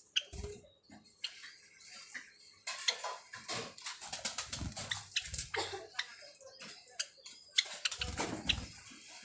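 Java sparrows feeding from a plastic tub of soft egg food: irregular pecking taps and clicks, with rustling in the straw and a few short chirps. A low, thudding rustle comes three times, near the start, in the middle and near the end.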